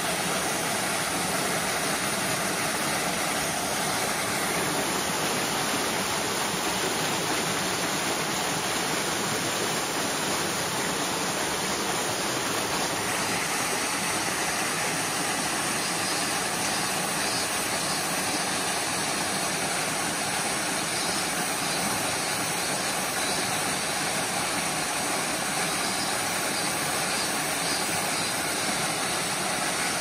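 Steady, even rush of a narrow waterfall about ten-odd metres high plunging into a pool.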